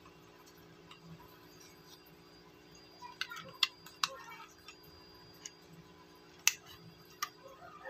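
Plastic case of a Sonoff Wi-Fi switch being handled while a Phillips screwdriver fastens its cover screw: faint small clicks and ticks, a cluster about three to four seconds in and a sharper click about six and a half seconds in.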